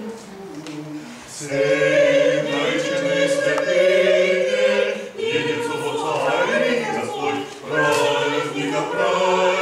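Choir singing Orthodox liturgical chant a cappella, in sustained chords. It starts soft and grows fuller and louder about a second and a half in.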